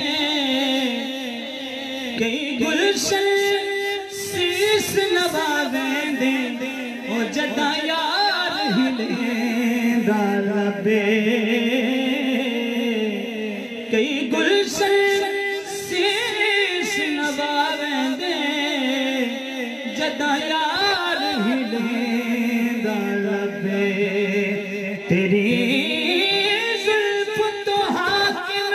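A man's voice singing a naat, drawing out long wavering notes, amplified through the hall's microphone.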